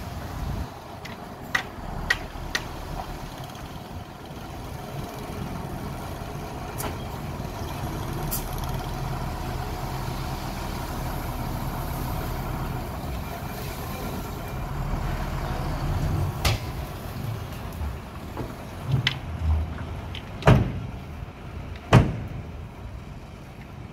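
Dump truck's diesel engine running steadily while its raised bed tips out a load of sand. In the latter part the truck pulls forward and a few sharp bangs sound, the loudest two about a second and a half apart near the end.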